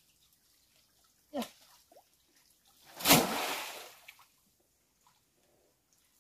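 A single loud splash in the pond's water about halfway through, fading away over about a second. It follows a short falling tone just over a second in.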